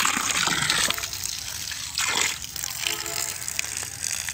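Water jetting from the hose of a homemade 12-volt pump driven by a 775 DC motor and splashing onto the ground, a steady hissing gush, a little quieter after about a second. It is a pressure test of the pump's output.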